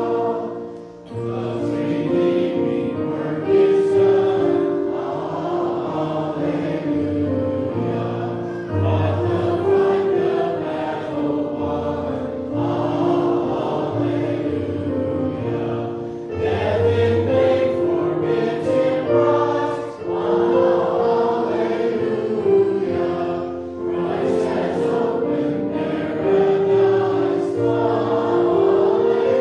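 Choir singing a slow piece in held notes, over sustained low accompanying notes.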